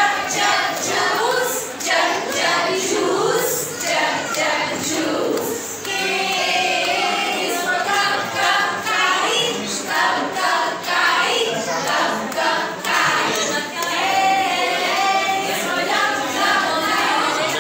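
A woman and a group of young children singing a song together, the woman's voice leading.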